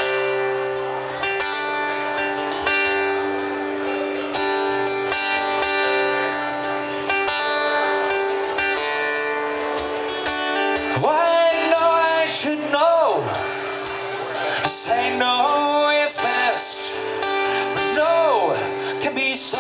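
Two acoustic guitars playing an instrumental break between sung verses, with long held notes. From about halfway, a wordless melody line slides up and down over the guitars.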